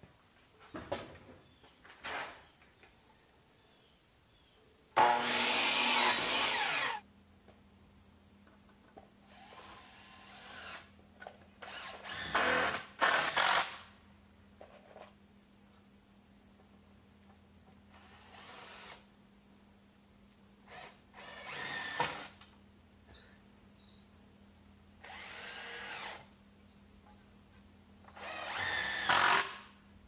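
A DeWalt miter saw cutting a 2x4 once, the loudest sound, lasting about two seconds. Then a cordless impact driver drives screws into a 2x4 wall frame in several short bursts. Crickets call steadily throughout.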